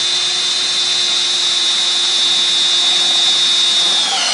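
Drill running steadily at full speed, driving a CAMO hidden-fastener screw through the CAMO Marksman jig into ipe hardwood decking with very little pressure. The whine sags and stops just before the end as the screw seats.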